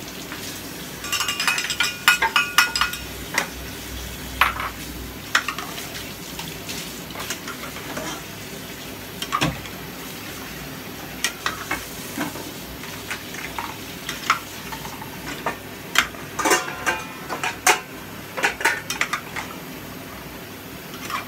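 A metal ladle stirring chunks of stew vegetables in a metal pot, scraping and clinking against the pot's sides, over a steady hiss. Ringing clinks come in clusters about a second in and again near the end.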